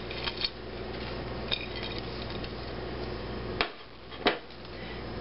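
Light clinks of a ceramic plate against a glass mixing bowl as crumbled bacon is added, then two sharp knocks a little past halfway, about two thirds of a second apart.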